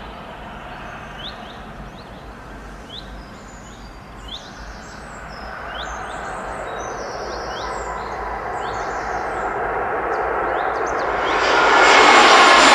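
Birds chirping repeatedly over a steady distant rushing. About eleven seconds in, a jet airliner on landing approach swells in loud and drowns everything else.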